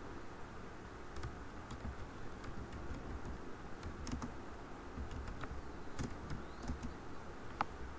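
Computer keyboard being typed on: slow, irregular single keystrokes clicking.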